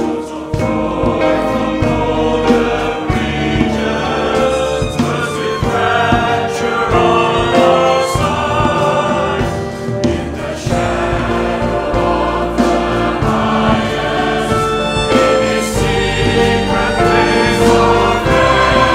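Mixed choir singing a hymn in sustained, full chords.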